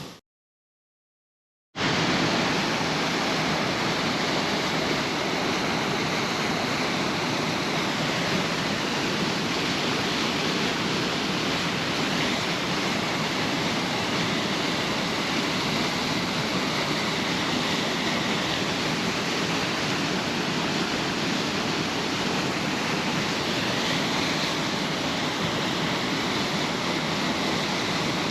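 A waterfall rushing: a steady, even noise of falling water that cuts in abruptly after nearly two seconds of dead silence.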